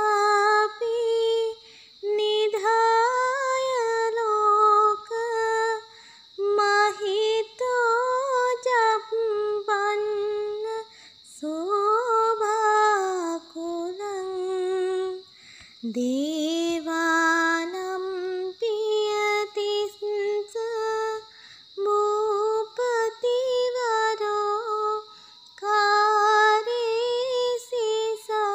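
A woman's voice singing a slow melody in phrases of one to three seconds, the pitch gliding up and down, with short pauses between phrases.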